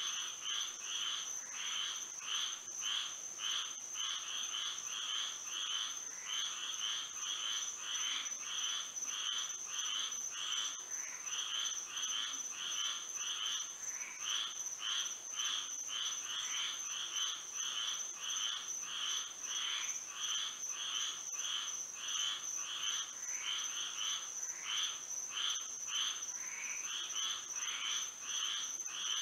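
Chorus of frogs calling at night: many short, rapidly repeated calls, about three a second, overlapping continuously. Beneath them runs a steady high-pitched tone.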